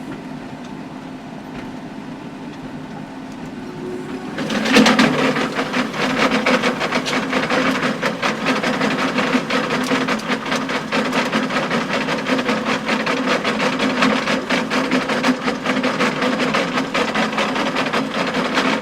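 John Deere tractor and power harrow running steadily. About four and a half seconds in it gets louder and a dense, rapid clatter sets in and keeps going: stones clacking against the harrow's rotating tines.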